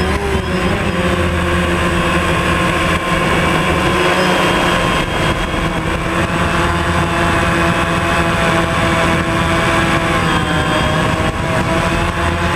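DJI Phantom quadcopter's motors and propellers running in flight as a steady, loud whine made of several tones, heard from the camera on board. The pitch shifts as the motors change speed right at the start and again about ten seconds in.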